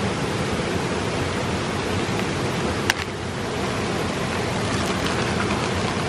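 Steady rushing of running water, with one sharp click about halfway through.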